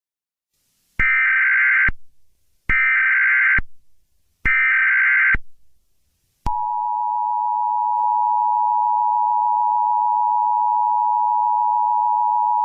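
Emergency Alert System alert opening: three one-second bursts of SAME header data with short gaps between them. About halfway through, the steady two-tone EAS attention signal starts and holds.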